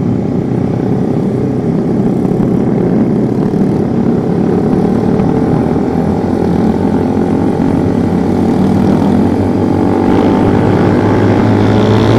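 Suzuki GSX motorcycle engine running through a Pro Liner Short aftermarket exhaust at low revs, with a sputter at low revs that the rider calls "brebet". The pitch climbs slowly in the later part as the bike gathers speed.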